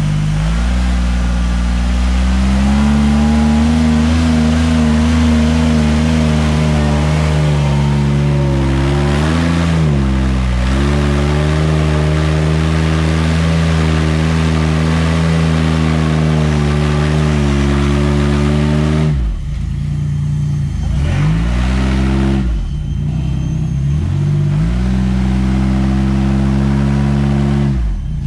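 Off-road 4x4 engine running under throttle at a steady pitch. It dips briefly about ten seconds in, then drops off and picks back up several times in quick succession near the end as the throttle is lifted and reapplied.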